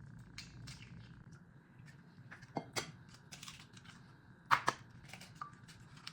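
Eggs being cracked against the rim of a bowl: scattered sharp clicks and knocks, with two pairs of cracks, the louder pair about four and a half seconds in.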